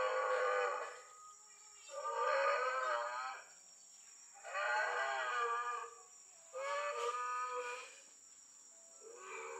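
Animatronic Stegosaurus's loudspeaker playing a recorded dinosaur call: a drawn-out, bellowing animal cry repeated over and over, each call lasting about a second with a short pause between.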